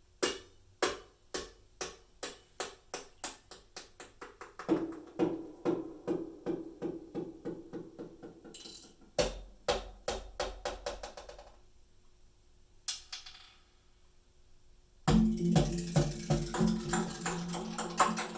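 Recorded music played back through Yamaha NS-BP200 bookshelf speakers: an instrumental passage of sharp wood-block-like percussion hits that come faster and faster, joined by a steady low note. After a near-quiet gap, a louder full band comes in about fifteen seconds in.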